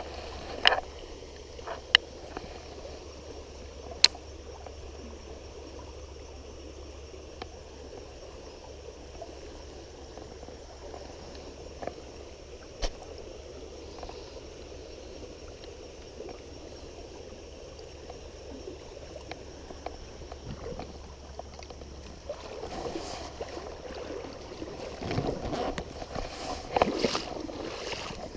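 River current flowing steadily, with a few sharp clicks in the first four seconds and another about halfway. Louder splashing and sloshing of water over the last six seconds.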